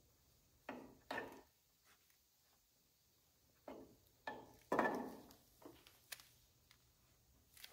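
Handling sounds from a gloved hand working behind a fiberglass fender panel. There are short rubbing and knocking noises in two bursts, one about a second in and a louder cluster around the middle, then a couple of sharp clicks.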